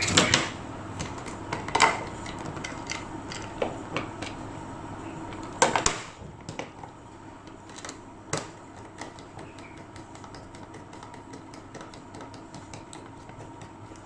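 Handling clicks and knocks of a plastic wall switch plate and its wires being fitted. A few sharper knocks come in the first several seconds, the loudest about six seconds in, and faint small ticks follow.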